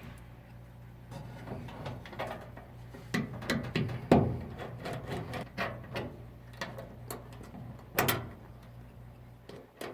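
Irregular clicks, taps and light rattles of hand work on an electric dryer's three-prong cord connection, the sharpest knocks about four and eight seconds in, over a low steady hum.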